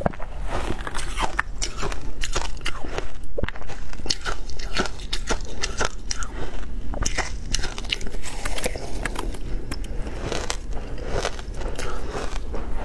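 Frozen ice chunks being bitten and chewed close to the microphone: dense, irregular crunching and cracking of ice between the teeth.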